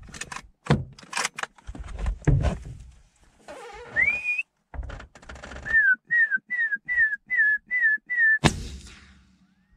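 A few knocks and clicks, then a person whistles: one rising whistle, followed by seven short falling whistles about three a second. Near the end a single rifle shot cracks out and dies away, fired at a Cape fox.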